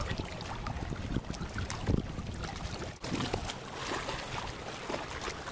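Wind on the microphone and sea water slapping against concrete breakwater blocks, with scattered small clicks and knocks from handling fishing tackle and a louder thump about two seconds in.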